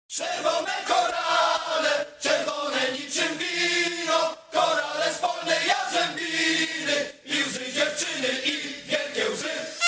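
Background music: a chanted, choir-like vocal passage without a bass beat.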